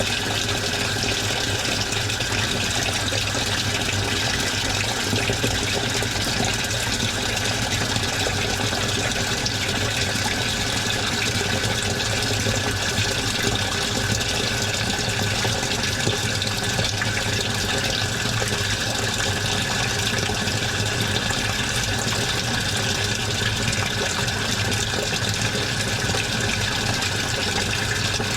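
Washing machine running, with water rushing steadily in the drum over a low hum.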